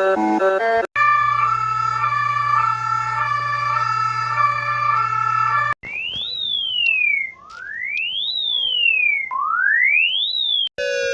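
Electronic emergency-alert tones. First several steady tones sound together over a low hum for about five seconds. Then a siren-like tone rises quickly and falls back three times, about two seconds each. A new set of alert tones cuts in near the end.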